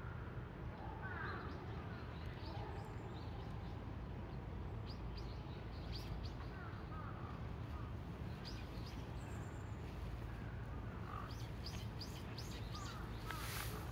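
Birds chirping and calling now and then outdoors, short high chirps and a few lower calls, over a steady low background rumble.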